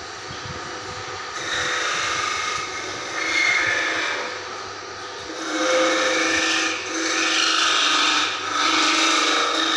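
Wooden miniature veena parts being filed and sanded in repeated rasping strokes, each about a second long, over a steady low hum.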